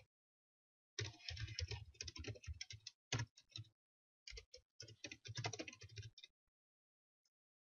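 Typing on a computer keyboard: quick runs of keystrokes from about a second in until just past six seconds, broken by short pauses.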